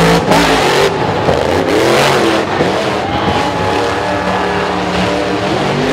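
Monster truck engines revving hard, the pitch climbing and falling again and again over a loud, dense wash of engine and tyre noise.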